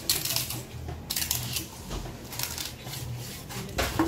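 Large fish knife slicing through a skipjack tuna loin and scraping on a wooden cutting board, in several short rasping strokes.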